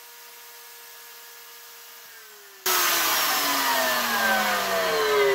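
Kobalt single-speed fixed-base router running with a steady high whine. About two seconds in it is switched off: the whine starts falling in pitch and, just after, turns suddenly much louder as the motor winds down.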